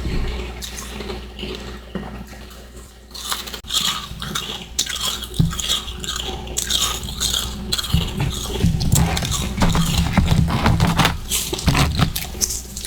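Close-miked biting and chewing of frozen freezer-frost ice chunks: dense, irregular crunching, softer for the first few seconds and then louder and nearly continuous.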